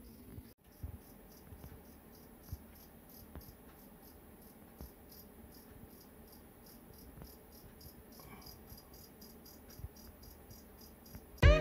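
Black crickets (two-spotted crickets) chirping steadily, about three short high chirps a second, with a few soft low knocks. Loud music starts abruptly just before the end.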